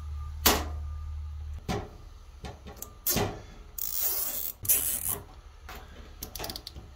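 Plastic zip ties being handled and threaded around a fishing rod and blowgun tube, with scattered clicks and knocks and two short zipping rasps about four and five seconds in as a tie is pulled through its ratchet head.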